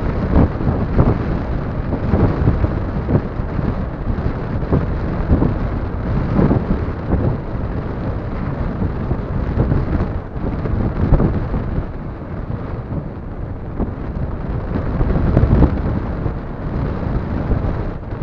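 Wind buffeting the microphone: a loud, gusty rumble that swells and eases every second or so.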